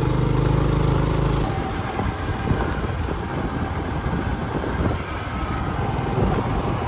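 Motor scooter engine running with a steady hum, cut off abruptly about a second and a half in and replaced by an irregular rumble of wind buffeting the microphone.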